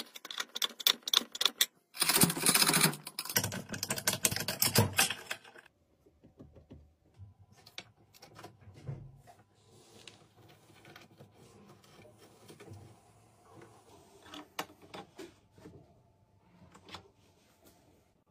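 Fast clicking and rattling of metal hardware worked by hand, loudest over the first six seconds. After that come softer, sparser plastic clicks as a tile-leveling cap is turned down onto its strap.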